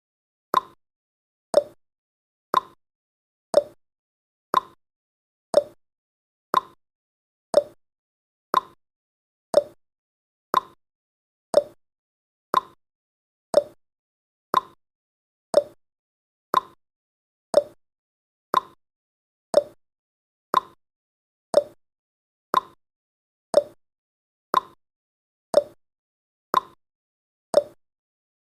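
Countdown timer's tick sound effect: one short, sharp tick every second, each tick the same.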